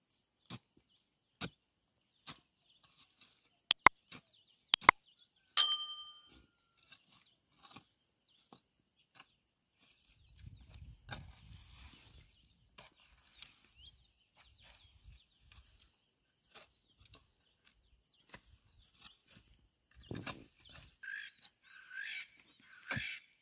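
Hand hoe striking soil in a planting hole: a series of sharp knocks, one of which rings briefly like metal hitting a stone. A steady high insect drone runs underneath, and short calls come in near the end.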